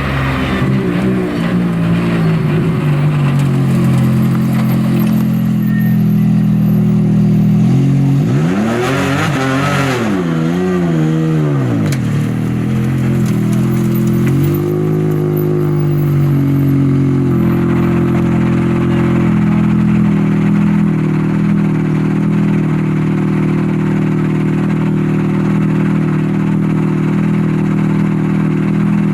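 Rally car engine idling steadily, revved up and back down once about eight seconds in and briefly again a little later.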